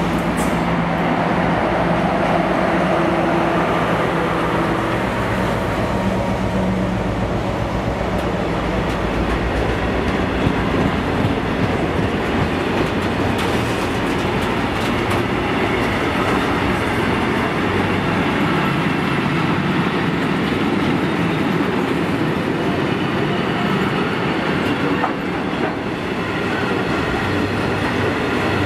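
A diesel-hauled freight train passing close by. The locomotive's engine drones steadily for the first five or six seconds, then a long rake of loaded wagons runs past with the steady noise of wheels on the rails.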